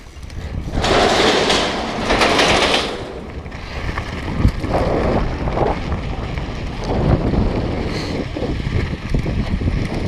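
Wind buffeting the microphone of a bike-mounted action camera as a downhill mountain bike rolls over a gravel trail, with the rumble of the tyres on loose dirt and occasional knocks from the bike. The wind rush is strongest in the first few seconds.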